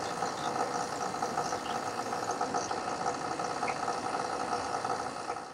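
Espresso machine pulling a shot: a steady mechanical pump hum and vibration as espresso streams into the cup.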